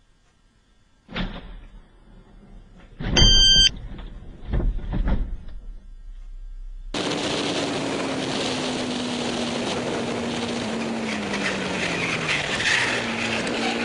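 A sedan crashing into a building and overturning: a sharp bang about a second in, then a louder crash with a brief beep and more impacts. About seven seconds in it gives way to steady road and engine noise of a car at speed, the engine note slowly falling.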